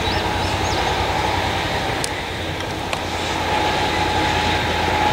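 Pair of diesel-electric freight locomotives running light, a steady low engine drone. A faint steady high tone joins a little past the middle.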